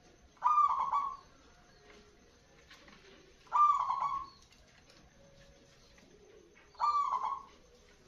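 Zebra dove (merbok) cooing in its cage: three short calls, about three seconds apart.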